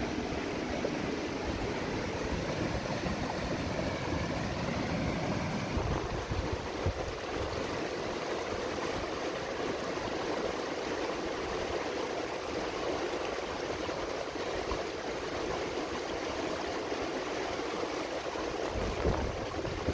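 Shallow mountain river rushing steadily over boulders in white-water rapids.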